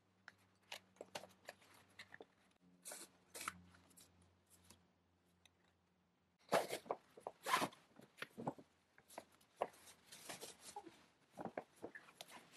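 Rustling and handling of gift packaging as a handbag is unboxed: a fabric dust bag, ribbon and card are handled against a cardboard box. The handling noises are faint and scattered, growing louder and busier about halfway through.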